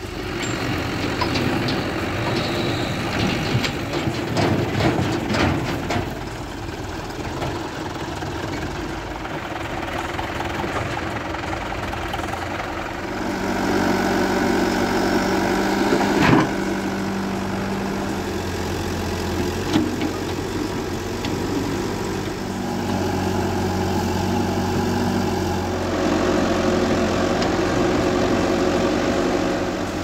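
Diesel engines of a JCB 3DX backhoe loader and a Mahindra tractor running, the engine sound growing louder about thirteen seconds in as the backhoe works. A sharp knock about sixteen seconds in and a smaller one near twenty seconds.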